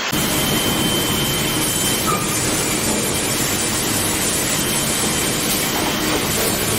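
Sawmill machinery running: a loud, steady rumbling clatter, with a faint high whine that drops out about two seconds in and returns near the end.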